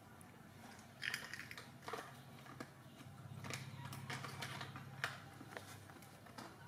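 Scattered light taps, clicks and scuffles from a baby macaque and a tabby cat wrestling on a concrete floor, over a low steady hum.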